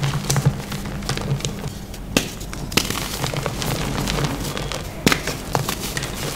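Hand squeezing and crumbling soft clumps of reformed gym chalk, giving a run of dry, irregular crackles and crunches as the clumps break into dusty powder.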